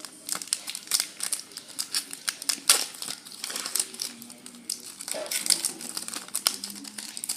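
Foil Pokémon booster pack wrapper being crinkled and torn open: an irregular run of sharp crackles and rustles.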